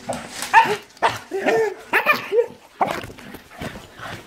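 Excited dog whining and yipping in a string of short pitched calls, with sharp clicks between them: a dog greeting its returning owners.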